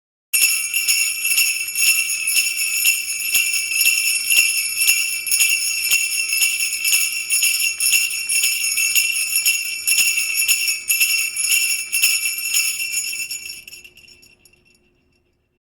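Sleigh bells (jingle bells) shaken in a steady rhythm, about two shakes a second, fading away near the end.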